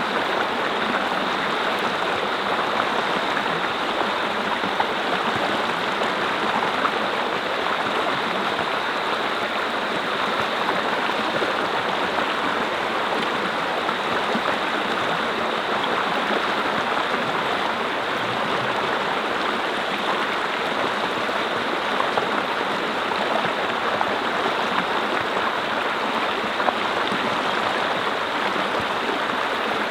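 Mountain brook flowing over rocks: a steady, dense rush and babble of water.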